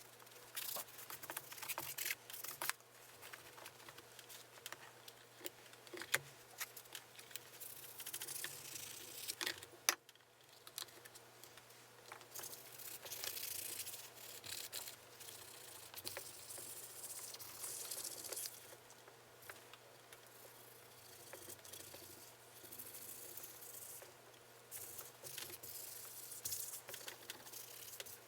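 Hands working on an electric guitar: irregular rubbing and scraping, broken by light clicks and small knocks as parts and tools are handled, with a sharper click about six seconds in and again about ten seconds in.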